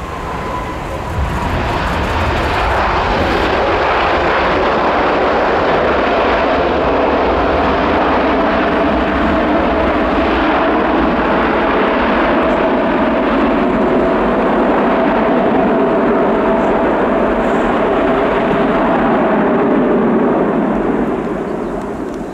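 Jet engines of a Boeing 787-8 Dreamliner running as the airliner moves along the runway: a steady jet roar with a held whine. It swells about a second in and eases off near the end.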